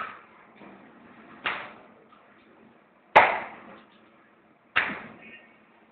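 A sheet of yeast dough slapped down onto a worktable four times, about every one and a half seconds, each a sharp smack that dies away quickly.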